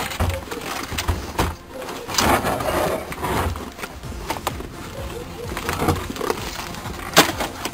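Wooden dog-house roof being lifted off: knocks and scraping of wood, with snow on it crunching and shifting, and a sharp knock about seven seconds in.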